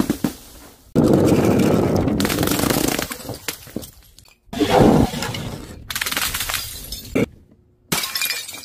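Liquid-filled balloons and containers dropped from a height, bursting and smashing on paving stones. There is a hard hit about a second in followed by about two seconds of splashing and scattering, then another loud smash a few seconds later and two shorter ones near the end.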